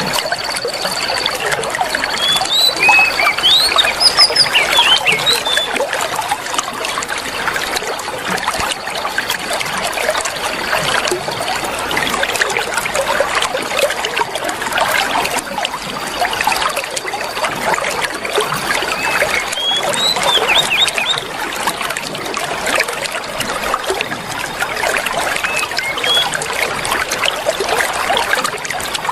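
Water trickling and splashing steadily, with oriental magpie-robin calls over it. There are clusters of quick rising and falling chirps near the start and again about two-thirds through, and long, steady high whistles near the start and about halfway.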